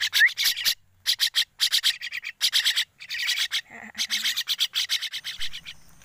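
Young crested mynas giving harsh, rasping begging calls in rapid runs of pulses, with a short rising chirp just after the start.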